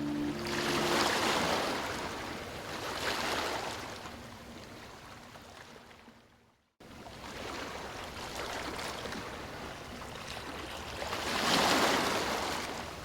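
Ocean waves breaking and washing up a beach, the surf swelling and fading in slow surges. It drops out abruptly for a moment about six and a half seconds in, then comes back.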